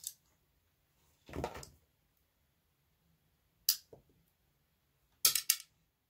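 Sharp metallic clicks and clinks from screws and a screwdriver being worked on a steel computer case, with a brief scrape about a second and a half in and a quick cluster of clicks near the end.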